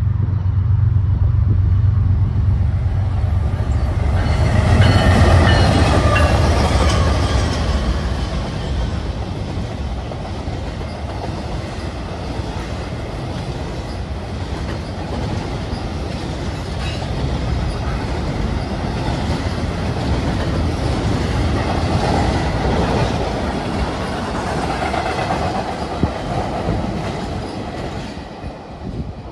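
Freight train passing at speed. Diesel locomotives go by with a low rumble, loudest about five seconds in. A long string of double-stack intermodal container cars then rolls past on steel wheels and begins to fade near the end.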